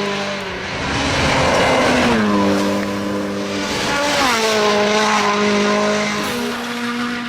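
Rally car engine running hard at high revs, its note stepping down in pitch about three times. A burst of rushing, scrabbling noise comes about a second in.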